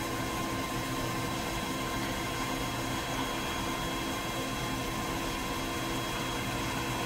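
Dyna Myte DM3000 CNC lathe running with its spindle turning: a steady machine hum with a constant high whine over it.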